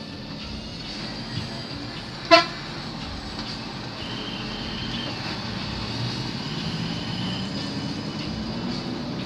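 A moving bus's engine and road noise drone steadily, with one short, loud horn toot a little over two seconds in. The engine note rises slightly near the end.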